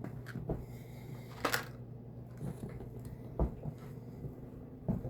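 Light handling noises: a few soft knocks and a brief rustle as small items are picked up and set down, over a low steady hum.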